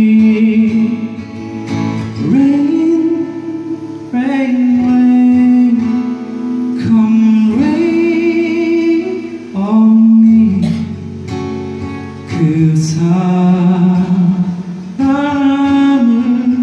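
A man singing a slow ballad live, holding long notes, over his own strummed acoustic guitar.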